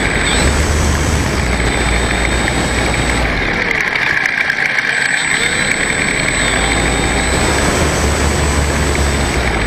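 RC model Spitfire's motor and propeller running close to the wing camera as the plane taxis on grass. The motor note dips briefly about halfway through and then comes back up.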